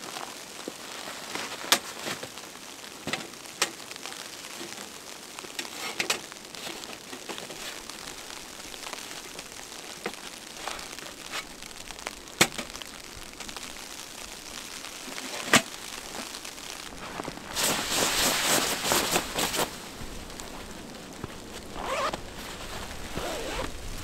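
Steady hiss of wind and falling snow, broken by scattered sharp taps and knocks as camping gear is handled. About two-thirds of the way in comes a couple of seconds of loud, crinkly rustling of fabric.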